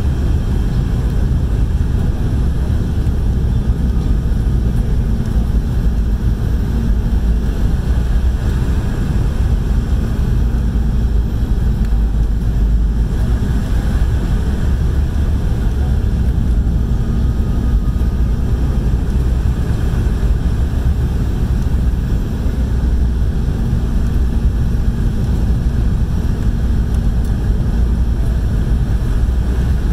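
Steady, low cabin noise inside a Boeing 717 in flight: air rushing past the fuselage and the hum of its two tail-mounted Rolls-Royce BR715 turbofans, as the jet descends low over land on its approach to land.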